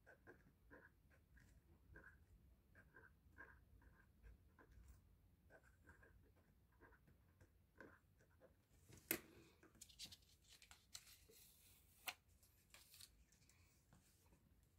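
Faint pen strokes scratching on paper for the first several seconds. About nine seconds in comes a sharp click, then a few seconds of rustling with several more clicks.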